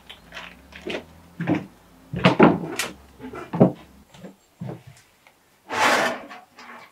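Knocks and clunks of things being handled on a storage shelf, then a louder, longer rasping noise about six seconds in as a metal fuel can is gripped by its handle and pulled out.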